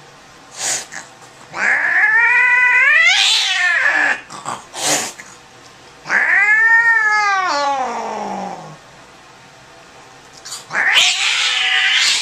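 Domestic tabby cat yowling while held down by the scruff: two long drawn-out yowls, each rising then falling in pitch. Near the end comes a shorter, harsh noisy outburst.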